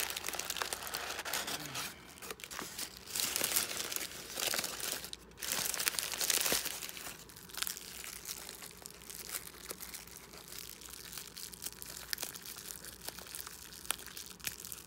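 Packaging being unwrapped by hand: crinkling and tearing of wrapping material, loudest in two spells in the first half, then lighter crinkling with small clicks.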